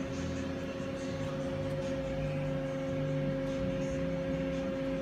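Steady hum of a powered-up Hwacheon Hi-Eco 31A CNC turning center standing idle, with a steady mid-pitched whine over it; the machine is switched on but not cutting.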